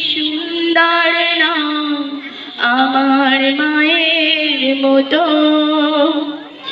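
A woman singing a Bengali gojol, an Islamic devotional song, into a microphone over loudspeakers: one voice holding long, wavering, ornamented notes in two phrases, with a short breath between them a little over two seconds in.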